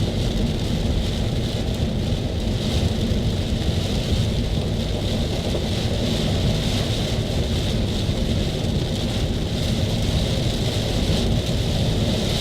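Steady rumble and hiss of a car driving along the road.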